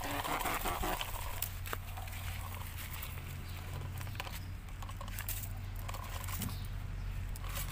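Scattered clicks and light scraping from a plastic toy dump truck being handled and tipped on dry dirt, with soil pattering out, over a steady low hum.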